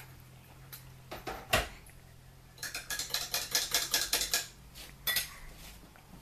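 A baby in a high chair eating a Mini Milk ice lolly on a wooden stick, making small sharp clicks and taps. There are a few single clicks, then a quick run of them for about two seconds, then one more near the end.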